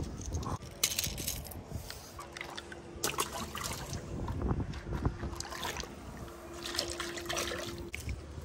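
Water splashing and dribbling as a small bass is swung up out of the water on the line, then scattered knocks and clicks of a fishing rod being set down on concrete and handled. A faint steady hum runs underneath from about two seconds in.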